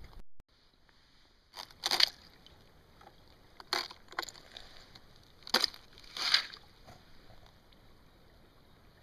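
Porous, honeycombed spring ice at the river's edge being broken off by hand: about five short crunching, tinkling snaps spread over several seconds, over a faint steady hiss.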